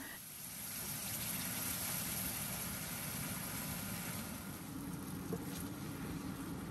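A steady low mechanical hum under an even hiss.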